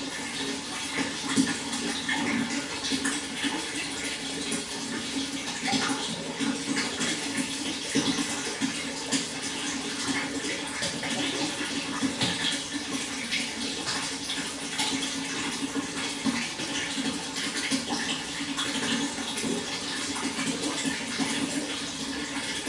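Water flowing steadily, a continuous rush of many small splashes.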